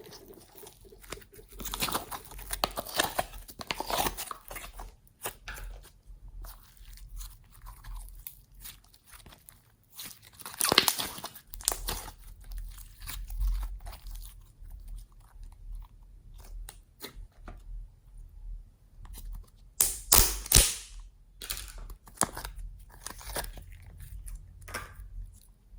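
Slime being kneaded and stretched by hand: irregular sticky clicks, pops and squishes, with louder bursts about eleven and twenty seconds in.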